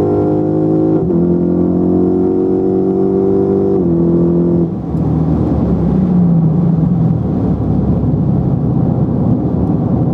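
Lexus IS F's 5.0-litre V8, fitted with aftermarket intake, headers and exhaust, accelerating mildly through an automatic gearbox: the note climbs, drops at an upshift about a second in and again near four seconds. Just under five seconds in the engine eases off and the sound turns to a steady rush of road noise with a low exhaust drone.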